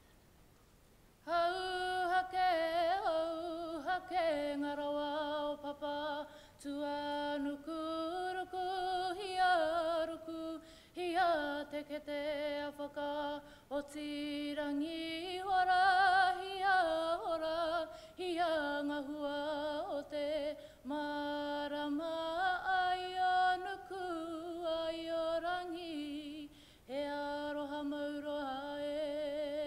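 A woman singing solo and unaccompanied: a Māori waiata sung as a slow chant of held notes that step up and down, in phrases with short breaths between them, starting about a second in.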